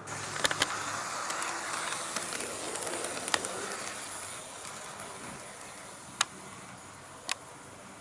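HO-scale model train, an EF81 electric locomotive hauling Koki 50000 container flat wagons, running on the track close by. It makes a steady rushing rumble of wheels and motor that starts suddenly and fades after about five seconds, with a few sharp clicks.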